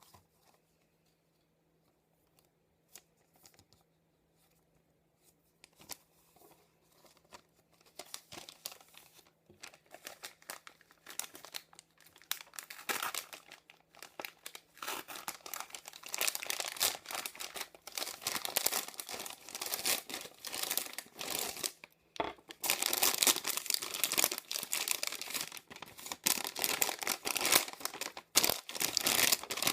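A mail package being opened by hand: packaging crinkling and tearing in irregular bursts. It is almost silent for the first few seconds, then grows busier and louder.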